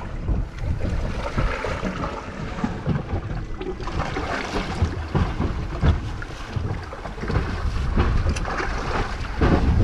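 Wind buffeting the microphone over a choppy sea, with waves washing and slapping irregularly against a small boat's hull.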